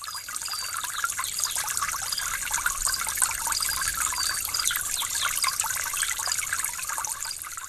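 Steady trickling, running water, with many short high chirps over it. It fades in over the first second and fades out near the end.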